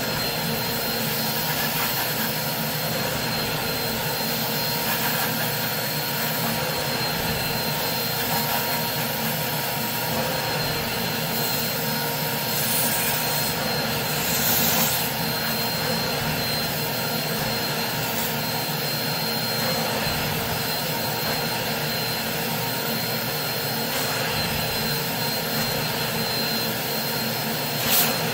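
Carpet-cleaning extractor running steadily with a high whine and rush of suction as its stainless-steel wand is drawn across a wool rug, with a short knock near the end.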